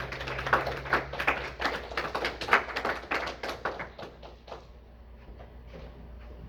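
A rapid, irregular run of taps and knocks, dense at first and dying away after about four and a half seconds.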